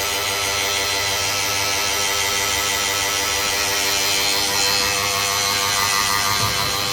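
Kyocera TASKalfa photocopier running, a steady mechanical drone with a constant hum.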